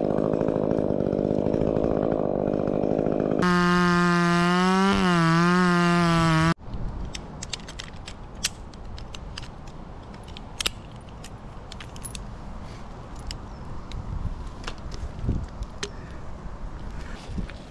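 Chainsaw running loud, its tone changing to a clear wavering note about three and a half seconds in, then stopping abruptly. After that come quieter scattered clicks and clinks of metal climbing hardware and rope.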